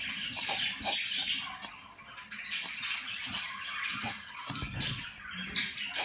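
Cockatiel chicks about twenty days old giving harsh, raspy begging calls over and over, in short hissing bursts with a few sharper chirps among them.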